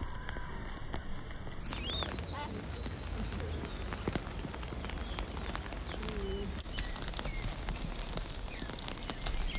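Rain falling and dripping, with many scattered drop ticks over a steady wash. A few short, high bird chirps come through about two and four seconds in.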